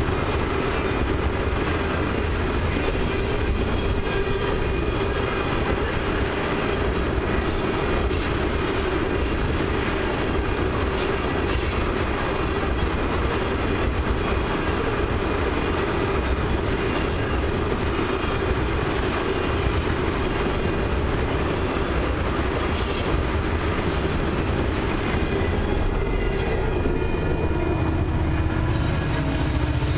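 A loaded freight train of ethanol tank cars rolling steadily past on jointed track: a continuous wheel-and-rail rumble with clickety-clack. In the last few seconds the sound changes as a GO Transit bilevel commuter train passes on the other track.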